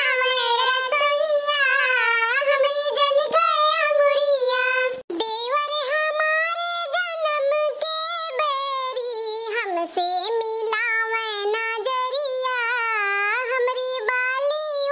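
A single high-pitched, cartoon-style female voice singing a folk song in melodic, drawn-out phrases, with a short break about five seconds in.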